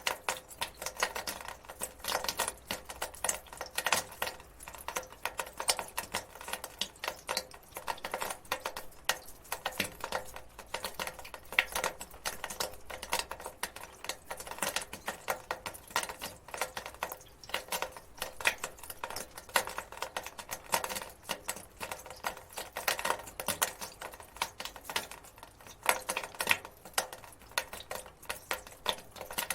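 Water dripping: many irregular drops, several a second, falling without letup.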